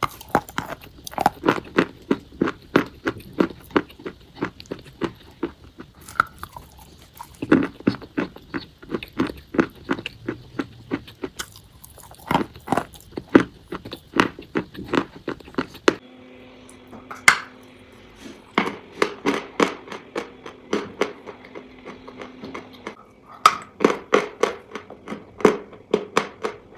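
A person biting and chewing chalk close to the microphone: dry, sharp crunches several times a second. About two thirds of the way through, the audio changes and a faint steady hum runs under the crunching.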